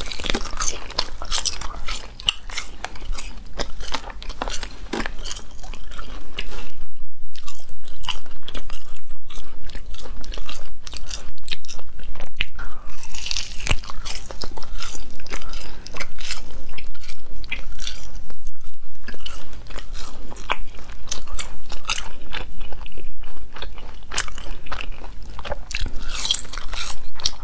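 A person biting and chewing spicy Chinese gluten sheets (la pian), close to a clip-on microphone: a dense run of crunching bites and chewing.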